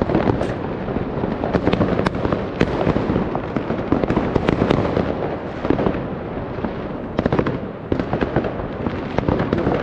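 Many fireworks going off at once: a dense, continuous barrage of bangs and crackling from rockets and firecrackers, with no gap between reports.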